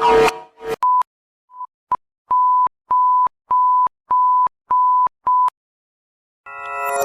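Emergency alert tones played in reverse. A pulsing tone cuts off early. Then come a few short high beeps and six evenly spaced beeps of one pitch, about 0.6 s apart. After a short gap, near the end, a run of electronic chime notes begins.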